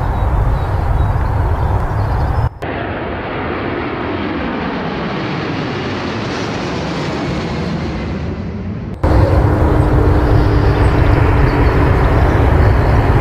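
A four-engine military jet flying low overhead: a loud rushing jet noise whose pitch sweeps down as it passes. Before and after it, cut in abruptly, is a deep steady jet-engine rumble with a faint steady whine.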